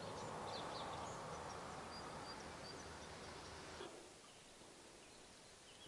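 Faint outdoor ambience: a steady hiss with a few faint bird chirps, the hiss dropping away suddenly about four seconds in.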